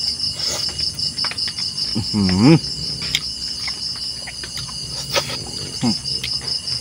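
Night insects chirping in a steady, fast pulsing trill. About two seconds in comes a short hummed "mm" from a voice, with small clicks of eating and fish being picked apart.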